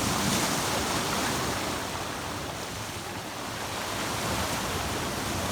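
Sea waves washing onto the shore, a steady rushing surf that swells slightly at the start and again near the end.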